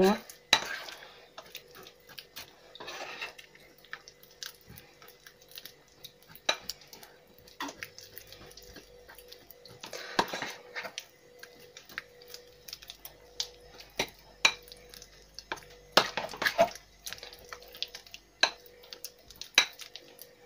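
A metal spoon stirring a thick, sticky cornstarch-and-PVA-glue mass in a glass bowl, with irregular clinks and scrapes of the spoon against the glass. The mass is already setting after heating.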